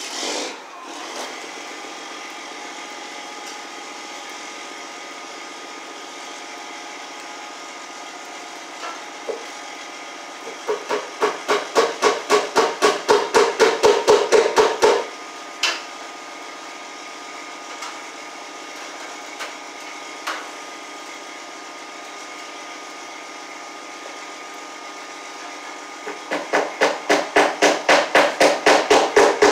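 Hammer blows on a wooden overhead beam in two quick runs, about four to five strikes a second, each run growing louder before it stops.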